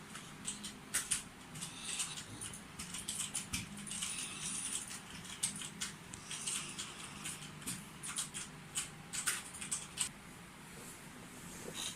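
A sleeping dog snoring, with breathy hisses coming and going and many small sharp clicks scattered through it; the sound gets quieter after about ten seconds.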